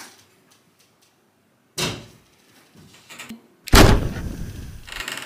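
Interior door sounds: a short knock-like bang about two seconds in, then a louder bang a little before four seconds that dies away over about a second.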